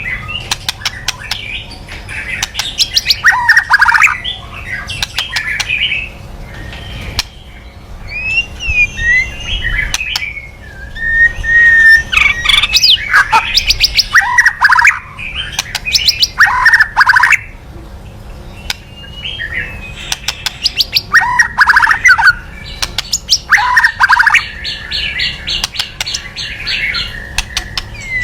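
White-rumped shama (murai batu) giving its harsh 'kretekan' agitation call: sharp clicks and scratchy chattering notes in repeated bursts, with a few thin whistled glides in the middle and a fast, even ticking rattle near the end.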